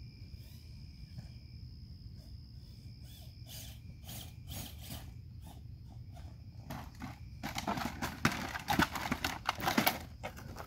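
Footsteps and scuffing on a rocky dirt trail, sparse at first, then a denser stretch of loud crunching on gravel for a couple of seconds near the end.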